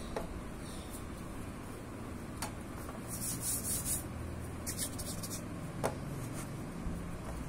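Hands rolling epoxy clay into a thin rope on a stainless steel plate: soft rubbing and brushing of skin and clay on the metal, in two short spells in the middle, with a few light ticks against the plate over a steady low hum.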